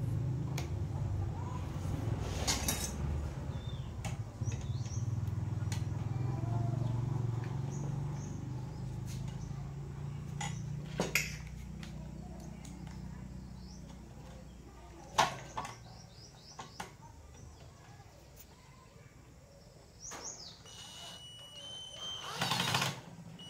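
A cordless drill runs for about a second near the end, driving a screw into an inverter welding machine, after a low hum that fades out over the first dozen seconds and a few sharp clicks of tools and parts. Occasional bird chirps.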